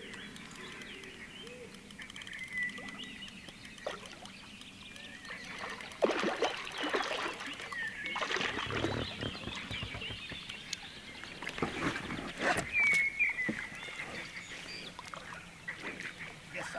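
Water splashing and sloshing in irregular bursts through the middle, with birds calling and chirping.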